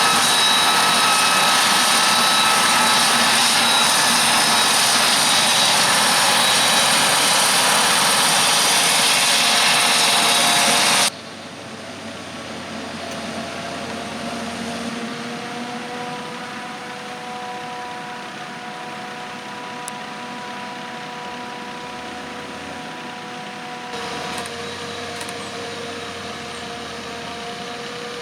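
Heavy farm machinery running: a loud, steady roar with a high whine, typical of a Claas Jaguar 970 forage harvester chopping maize. About eleven seconds in it cuts off suddenly to the quieter, steady hum of a tractor engine running.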